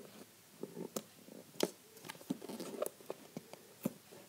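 Scissors snipping and scraping at packing tape on a cardboard shipping box, with hands handling the box: a scatter of small, irregular clicks and scratches.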